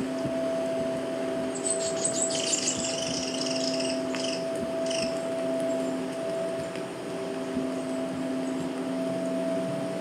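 Sound-art piece made from field recordings, played back over loudspeakers: a steady hum of several held tones, with a flurry of high, rapid chirps and ticks from about a second and a half to five seconds in.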